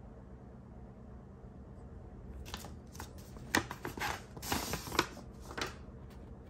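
Kraft paper envelope being handled and opened and a printed card slid out of it: a run of crisp paper rustles, scrapes and a few sharp taps starting about two and a half seconds in and lasting about three seconds, over a low steady hum.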